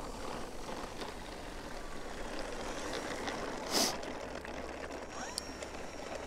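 Faint steady whir of an RC plane's brushless electric motor and propeller at low throttle as the foam-board FliteTest Storch taxis on the runway, with a short, sharp hiss about four seconds in.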